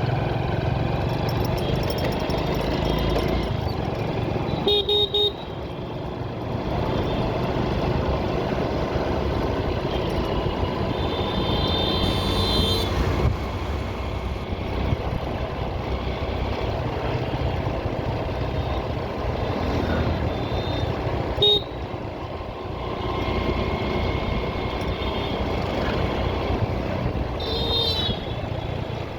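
Steady road traffic and riding noise, with vehicle horns honking several times: a short honk about five seconds in, a longer one near the middle, a brief one about two-thirds through and another near the end.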